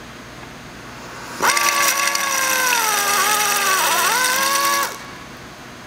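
Drill spinning a twist bit into the head of a CherryMax blind rivet, drilling the rivet head off. The motor whine starts about a second and a half in, dips in pitch briefly about four seconds in, and stops suddenly about five seconds in.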